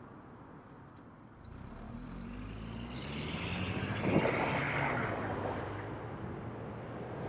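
A motor vehicle passing close by: engine and road noise swell from about a second and a half in, peak around four seconds, then fade away.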